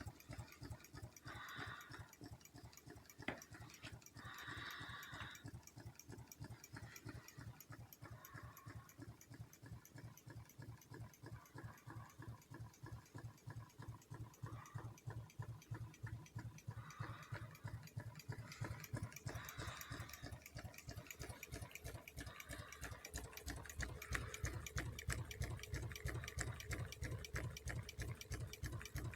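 Steady, even rhythmic knocking at about two to three strokes a second, growing louder in the last few seconds, which the uploader calls the clatter of hooves.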